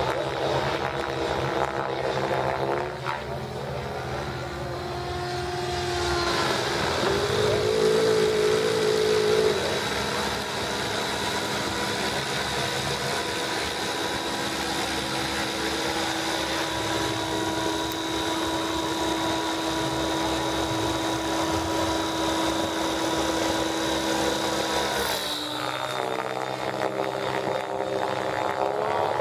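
Radio-controlled model helicopter flying overhead: a steady motor and rotor whine whose pitch shifts a few times. It is loudest about nine seconds in.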